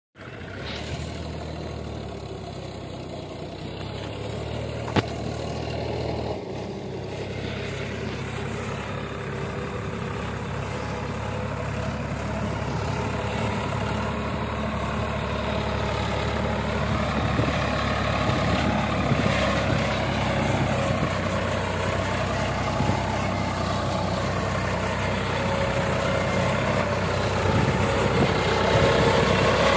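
Sonalika tractor's diesel engine pulling a loaded trolley at low speed, growing louder as it approaches. A single sharp click about five seconds in.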